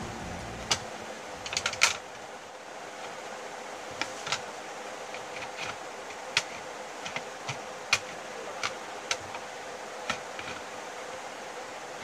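Metal screwdriver clicking against the steel case and screws of a Dahua DVR: a dozen or so sharp, irregular clicks, with a quick cluster about two seconds in, over a steady background hum.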